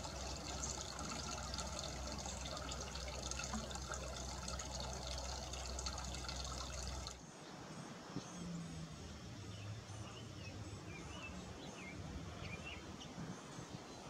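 Steady background noise with a low hum for about the first seven seconds, cutting off suddenly. It is followed by quieter outdoor ambience with scattered short, high chirps from small birds.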